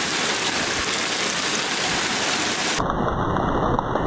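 Steady hiss of heavy rain during a thunderstorm. A little under three seconds in the sound changes abruptly and a deep rumble comes in underneath.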